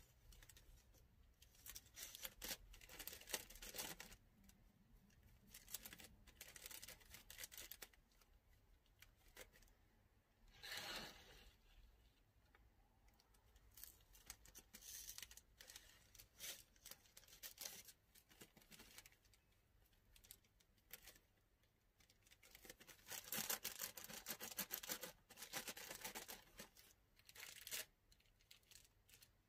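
Quiet handling of patchouli incense sticks and a plastic bag: light clicks of the sticks and crinkling plastic, with a denser stretch of rustling about three quarters of the way through.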